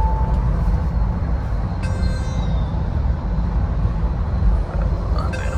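Steady low road and engine rumble of a moving vehicle, with a short click about two seconds in.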